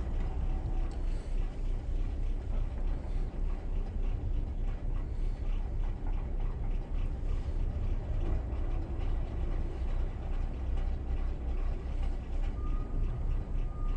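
Steady low rumble of a Bayliner 4788 motor yacht's twin diesel engines running.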